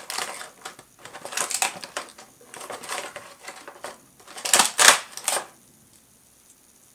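Clear plastic packaging tray of a boxed action figure crinkling and crackling in irregular bursts as the figure is worked out of it, loudest about four and a half seconds in, then stopping about a second before the end.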